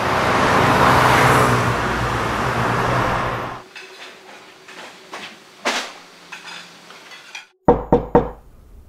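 A loud rushing swell with some held tones cuts off about three and a half seconds in, followed by faint clinks of kitchen utensils and pans. Near the end a hand knocks three times in quick succession on a wooden door.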